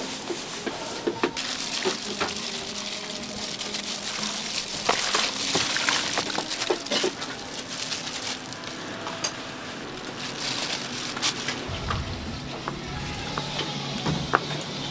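Food simmering and sizzling on a hot iron plate, a steady hiss with scattered sharp clicks of utensils, over music.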